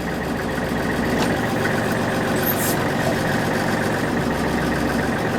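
Backhoe's diesel engine running steadily while the operator works the digging controls.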